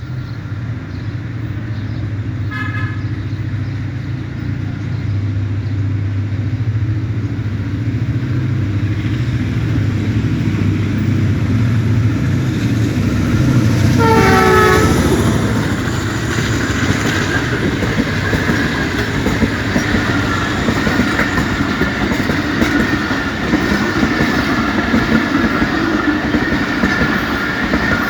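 Pakistan Railways AGE-30 diesel-electric locomotive hauling an express train past, its engine a low steady drone. Its horn gives a short blast a few seconds in, then a longer blast near the middle whose pitch drops as the locomotive goes by. After that, the coaches roll past with clickety-clack and wheel noise.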